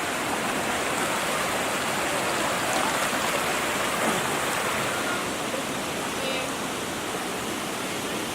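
Steady rush of water from a waterfall and stream.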